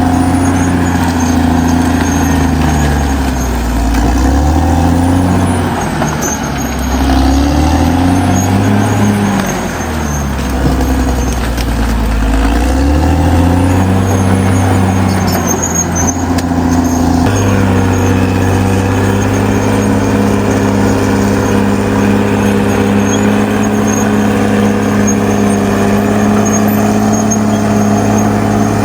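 Caterpillar D6R XL bulldozer's diesel engine running hard, its pitch sagging and recovering three times as it lugs under load. From about two-thirds of the way through, it settles into steady running.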